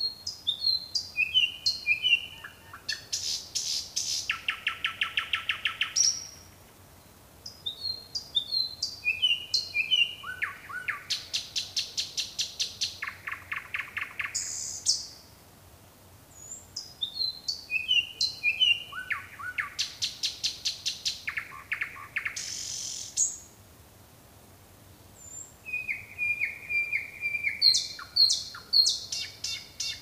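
Nightingale singing its night song: phrases of clear whistled notes stepping down in pitch, each running into a fast, rattling series of repeated notes, with short pauses between phrases.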